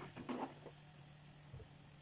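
A wooden spatula stirring a thick pumpkin-and-pea curry in a steel pan gives a few soft scrapes and squishes in the first half second. Then it goes quiet over a faint low hum, with one soft thump near the middle.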